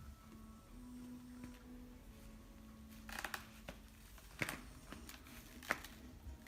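A sleeping pet snoring faintly, a low buzzing drone that breaks off now and then. From about halfway there are several sharp clicks and rustles, two of them louder than the rest.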